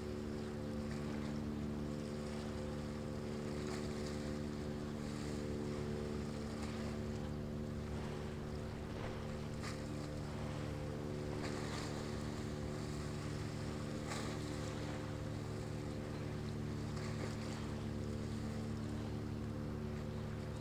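Steady, even drone of a ship's diesel engine carried over the water, with wind and the wash of waves underneath.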